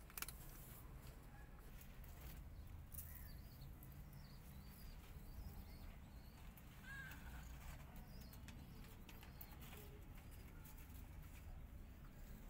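Near silence: faint low background hum with a few faint, short high chirps and a faint click near the start.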